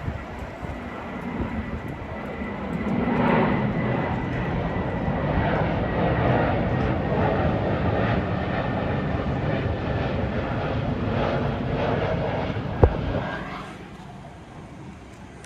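Airplane engine noise passing by, building about three seconds in, holding steady, then fading near the end, with one sharp knock shortly before it fades.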